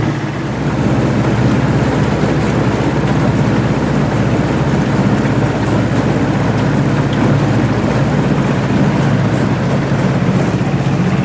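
A jon boat's motor running steadily while the boat is underway, with water and wind noise over it.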